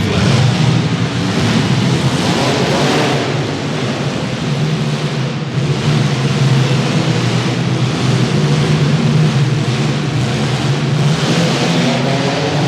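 Several compact demolition derby car engines running loud and rough under throttle, rising in pitch as they rev, over a steady noisy wash.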